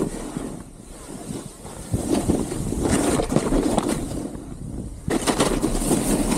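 Snowboard sliding and scraping over snow, with wind rushing on the microphone; the scraping eases off early on and comes back in loud surges about two seconds in and again about five seconds in.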